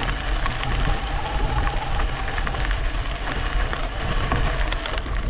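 Riding noise from an e-bike on a trail: wind rumbling on the microphone, with the tyres crackling and ticking over the surface in many short, irregular clicks.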